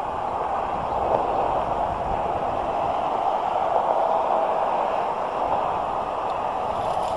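Steady rushing outdoor noise with no distinct events, swelling slightly after about a second.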